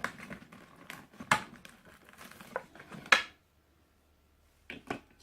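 Plastic clicks and knocks with some rustling as AA batteries are fitted into a LEGO Mindstorms brick's battery compartment, the loudest knock a little after three seconds in and a few more clicks near the end.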